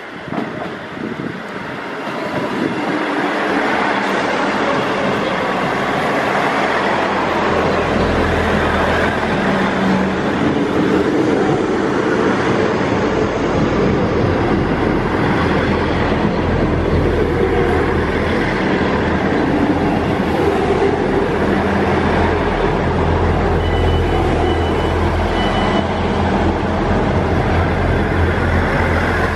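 A train running through on the line, growing louder over the first few seconds and then staying loud and steady, with a low hum underneath.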